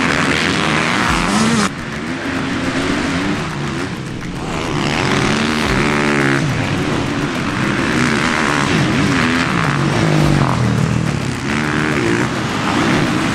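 Motocross dirt-bike engines revving hard on a dirt track, the pitch rising and falling again and again as the riders work the throttle through jumps and turns.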